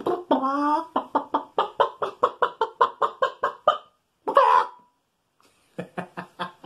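A man imitating a chicken with his voice: a drawn-out "bawk" that bends in pitch, then a quick run of short clucks at about five a second. A loud squawk comes about four seconds in, and a few lower clucks follow near the end.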